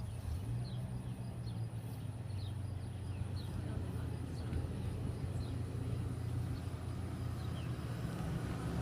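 A steady low engine hum, with short, high, falling bird chirps scattered over it.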